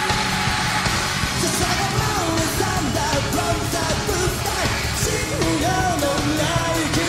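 Live rock band playing loudly with singing and yelling over it, in a concert hall.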